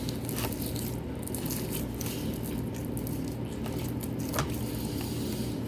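Clear glue slime being mixed and worked by hand: soft wet squishing with scattered small clicks over a steady low room hum.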